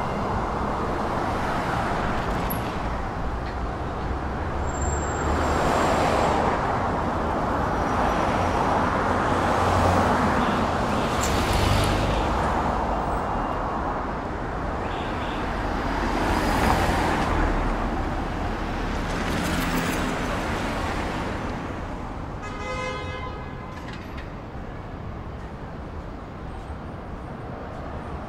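City street traffic: cars passing one after another in slow swells over a steady low rumble, with a short horn toot near the end.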